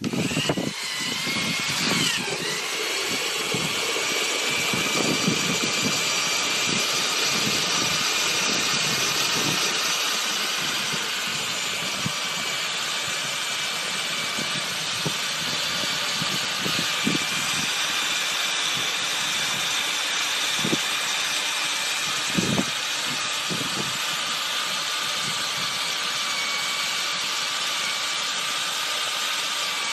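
Electric drill running steadily with a steady whine, spinning a long-shafted paddle in a plastic bucket of potatoes under a hose spray to scrub the skins off. Water sloshes, and the potatoes knock against the bucket now and then. The drill starts up abruptly at the very beginning.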